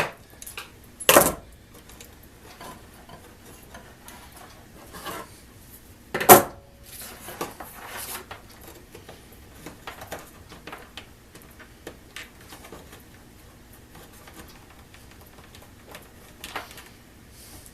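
Metal hand tools clicking and clinking while wire and a crimp-on connector are worked on: two sharp clicks about a second in and about six seconds in, with quiet handling ticks and rustling between.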